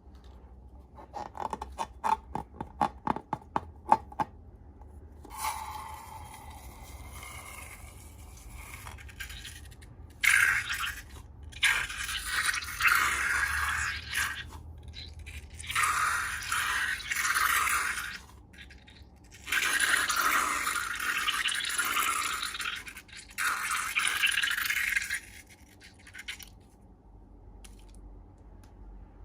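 Slime-making handling sounds: a quick run of sharp clicks, then several long, loud scraping strokes, each a second or more.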